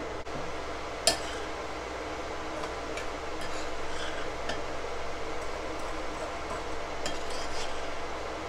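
A spoon stirring a thick creamy mixture in a mixing bowl, with light clinks and scrapes against the bowl, over a steady background hum. A sharp knock about a second in.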